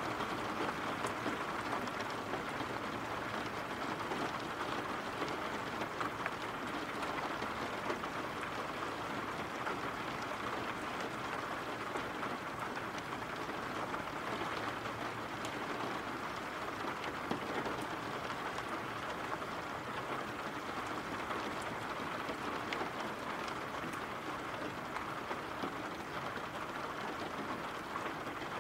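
Steady heavy rain, an even hiss with scattered small ticks of drops.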